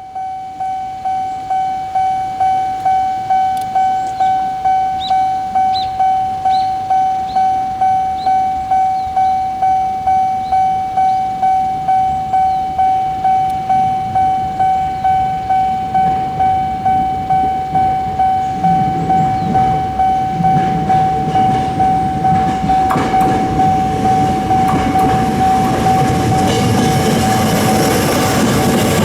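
Japanese railway level-crossing alarm ringing its electronic "kan-kan" tone in an even rhythm, about one and a half strikes a second. From about two-thirds of the way in, a train's rumble and wheel clicks build up and grow loud as it passes the crossing.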